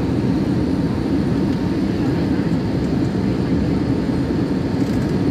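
Airplane in flight heard from inside the cabin: a loud, steady rumble of cabin noise.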